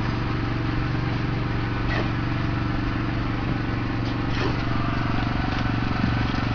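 A small engine running steadily at a constant speed, with a couple of faint clicks over it.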